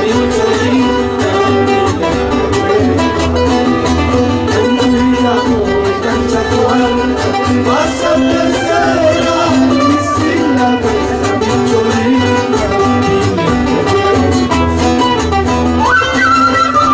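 Acoustic guitars playing music live, with a melody line wavering above the chords; about a second before the end a higher held melody line comes in.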